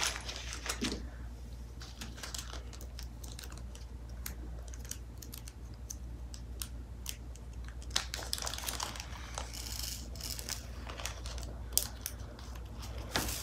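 Resin diamond-painting drills trickling and clicking into a plastic drill tray, along with the rustle of small plastic bags being handled: a scatter of small light clicks, thickest about eight seconds in and again near the end.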